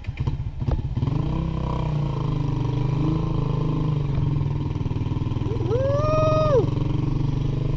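Motorcycle engine pulling away and then running steadily, its sound rising about a second in. About six seconds in, a person gives one long shout.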